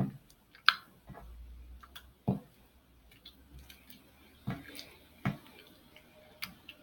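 Sticky glitter-glue slime being kneaded by hand while activator is worked in: irregular wet clicks and squishes, with a few louder sticky pops.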